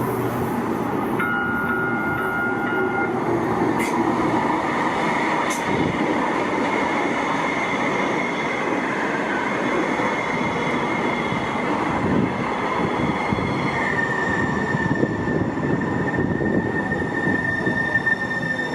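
Sound Transit Link light rail train running past on concrete-tie track, a steady rumble with a high-pitched whine that drops slightly in pitch about 14 seconds in and then holds steady.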